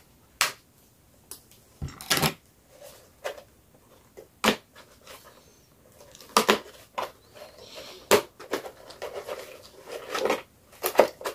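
Cardboard toy packaging being handled: irregular sharp clicks and snaps with soft rustling between them as plastic tags are pulled off and an action figure is worked free of its box.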